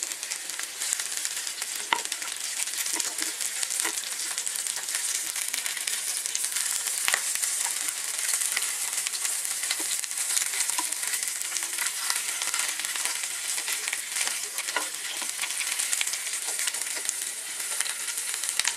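Chicken pieces shallow-frying in hot oil in a pan: a steady sizzle with scattered small crackles and pops as the pieces, browned on one side, are turned to brown the other.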